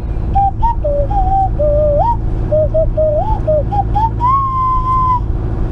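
A person whistling a tune in short notes that wander up and down, ending on one long held note, over the steady drone of a boat engine running.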